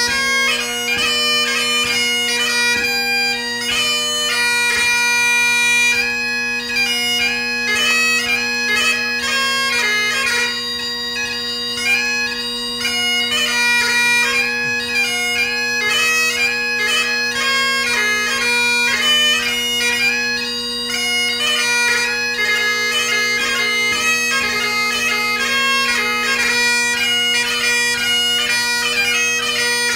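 Great Highland bagpipe played solo: the drones hold a steady low tone under a fast-moving chanter melody of light music (ceol beag).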